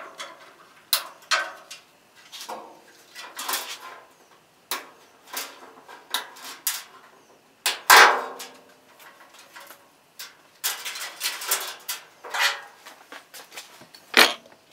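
Irregular clicks, taps and rustles of tail-light wiring being handled and worked on a steel pickup tailgate, with a sharper knock about eight seconds in.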